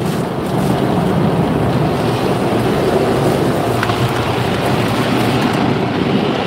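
Automatic car wash running outside the car, a steady rushing noise of spraying water or drying blowers heard from inside the closed cabin.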